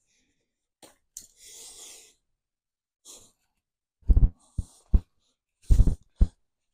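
A long breath out, then a run of dull knocks and thumps from things being handled and set down, the loudest in two groups near the end.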